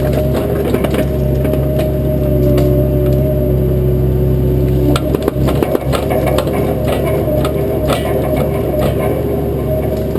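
Bobcat 337 compact excavator's diesel engine running steadily under hydraulic load, its pitch shifting about halfway through, while brush and small trees crack and splinter.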